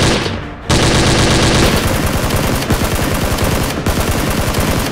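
Rapid automatic gunfire, a dubbed machine-gun sound effect, firing in long bursts with a brief break about half a second in.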